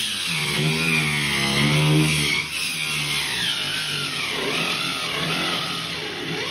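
Electric angle grinder fitted with a cutting blade, sawing through a plywood sheet; the motor's whine wavers in pitch as the blade loads and frees in the cut.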